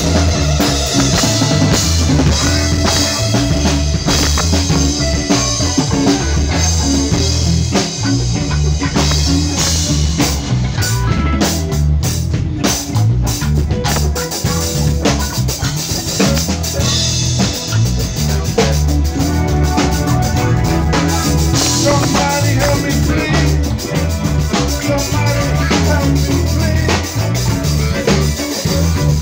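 A small live band playing: a drum kit keeping a beat, with keyboard synthesizer and a heavy low end.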